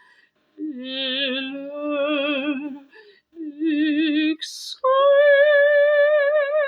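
Operatic female voice singing with vibrato: two phrases in the lower voice, a quick audible breath, then a long held note about an octave higher. It is meant to show a supple, released tone.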